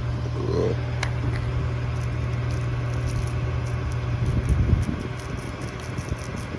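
An engine drones steadily at a low pitch while a spray wand hisses, putting a hot soft-wash cleaning mix onto stone.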